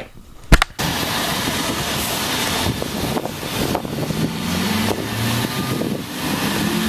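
A sharp click about half a second in, then steady outdoor noise with a car engine running.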